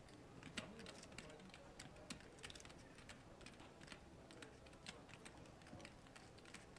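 Near silence with faint, irregular light clicks, several a second.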